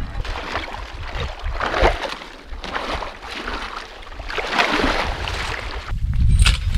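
Water sloshing and splashing as a man wades in waders and jabs a T-handled metal tool into a beaver dam to break it open, with water starting to spill through the gap. The splashes come in uneven bursts, the clearest about two seconds in and again around four and a half seconds.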